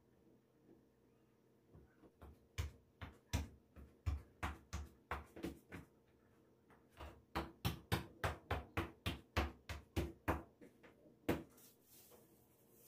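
Rhythmic knocking, about three knocks a second, in two runs with a short pause between, ending in one louder knock.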